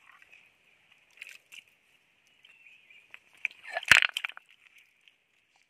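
Shallow stream water sloshing and splashing as hands grope through a pool for stranded fish, with scattered small clicks and a louder thump about four seconds in. A steady high hiss runs underneath.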